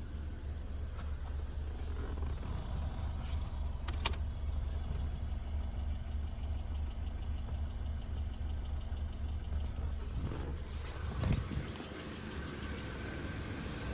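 Car engine idling steadily with clicking from the engine bay; one sharp click about four seconds in stands out, and the engine note swells briefly near the end.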